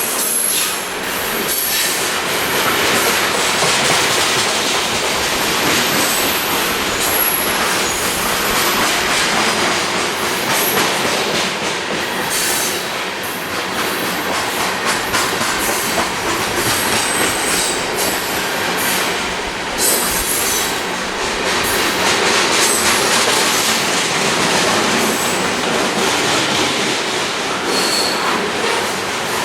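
BNSF freight train's cars rolling steadily past, wheels squealing in short high bursts and clacking over the rail joints.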